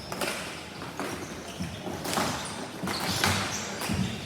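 Ball hockey play on a hard floor: a series of irregular sharp knocks and clacks from sticks hitting the ball and the ball bouncing, with shoes scuffing.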